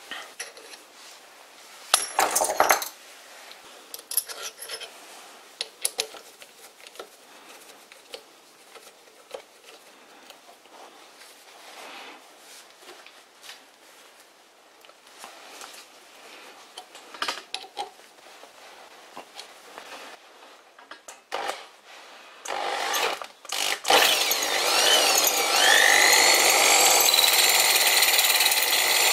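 Scattered metal clicks and knocks as a drill bit is swapped by hand in a drill chuck. About 24 seconds in, the tool-post drill spindle's motor starts, its whine rising as it spins up, then runs steadily and loudly.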